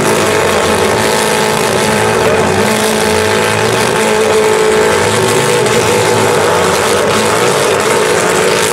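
Several small demolition derby cars' engines running and revving together, loud and steady with wavering pitch, as the cars push against each other in a pile.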